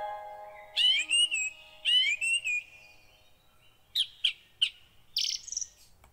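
Bird chirping: two quick phrases of rising and falling chirps, then three short sharp calls and a brief high twitter, over the fading end of chime-like background music.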